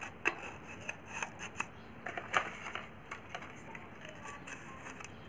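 Faint rustling and scattered light clicks of paper shims being handled and set around the pole piece of a 15-inch speaker's magnet, used to centre the voice coil.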